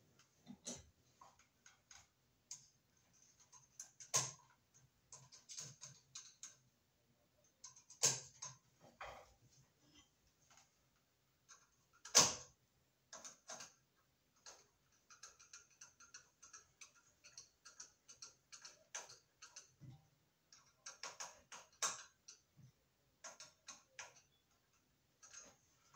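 Scattered light clicks, ticks and scraping of electrical cable and a hand tool being worked into a ceiling electrical box, with a few sharper snaps about 4, 8 and 12 seconds in, the one near 12 s the loudest.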